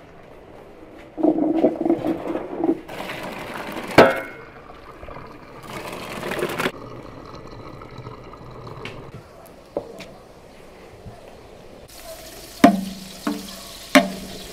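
Boiled rice being drained for pilaf: water pouring and splashing through a metal colander in several bursts, with a sharp metal clank about four seconds in. Near the end a slotted spoon knocks against a large aluminium pot three times, each clank ringing briefly.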